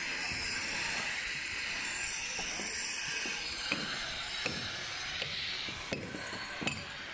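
Steady hiss, then from about halfway through, evenly spaced sharp knocks roughly every 0.7 seconds: hammer strikes on the concrete roof slab.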